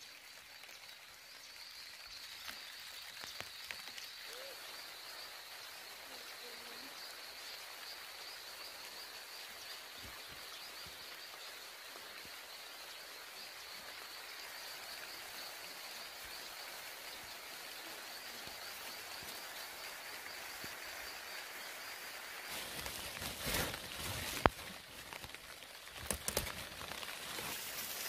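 Insects trilling steadily in a high, finely pulsing note over a steady outdoor hiss. Near the end come rustling of leaves and vines and handling noise as a melon is picked off the vine, with one sharp click.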